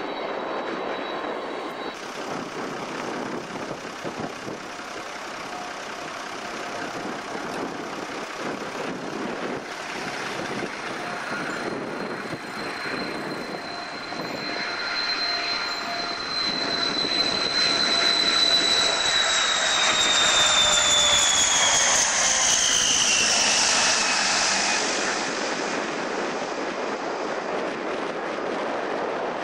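Turboprop airliner coming in to land: a steady engine drone with a high whine that grows louder as it approaches, then falls in pitch as the aircraft passes, before easing off. The first two seconds hold the tail end of a four-engined jet on its landing roll.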